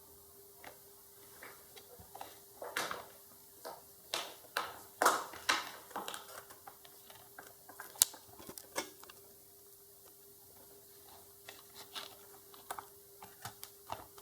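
Irregular clicks, taps and brief scrapes of bench handling as multimeter probes and leads are set down and placed on a circuit board's relay contacts for a continuity test, over a faint steady hum.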